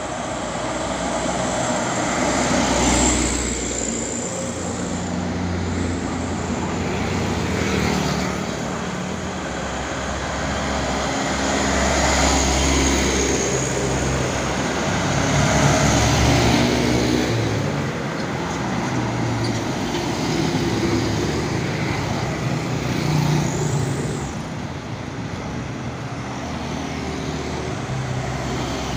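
Trucks and cars passing one after another on a road bend: engines running and tyres on the road, each swelling and fading as it goes by, several times.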